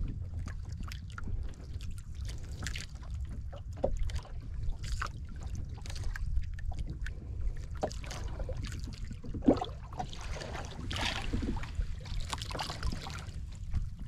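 Water lapping and slapping against a small outrigger boat, with wind rumbling on the microphone. Scattered knocks and clicks run through it, the sharpest about nine and a half seconds in.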